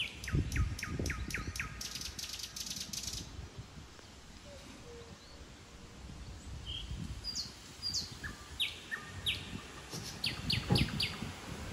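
Garden birds singing: a run of quick downward-sweeping whistles, then a fast high trill, then scattered short chirps. A few low thumps come near the start and again about ten and a half seconds in.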